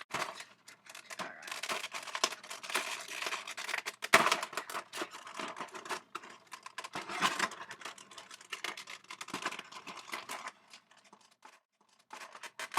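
Plastic packaging wrap crinkling and tearing as it is pulled open by hand, with many small sharp clicks and taps from the plastic, growing sparse near the end.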